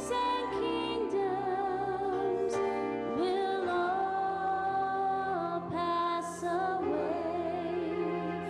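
A woman singing a worship song with vibrato on long held notes, over sustained chords from an electric keyboard.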